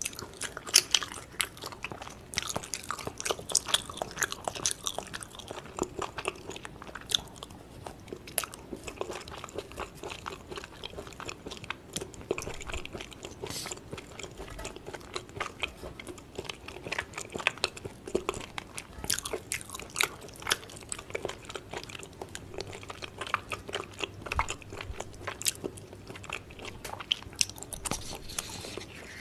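Close-miked chewing of raw beef tartare: a steady run of wet, sticky mouth clicks and smacks, with bites taken now and then.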